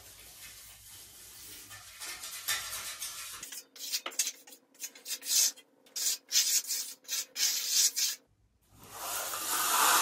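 Steel finishing trowel scraping over wet, setting concrete. A series of short, quick strokes is followed by a longer sweep near the end.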